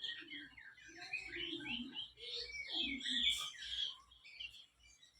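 Birds chirping: a quick run of short, high chirps that thins out and fades after about four seconds.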